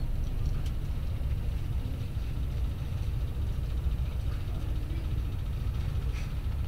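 Steady low rumble of a car ferry under way, its engines droning with no change in pitch.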